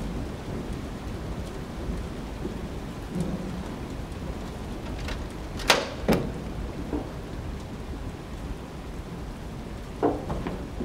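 Steady low rumble of a thunderstorm with rain. Two sharp knocks come about halfway through, and another near the end.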